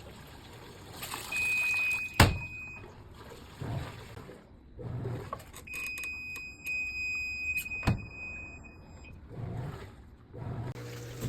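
Two long electronic beeps from an automatic washing machine's control panel, the first about a second in and the second longer, each broken by a sharp click, with brief low rumbles from the machine between them.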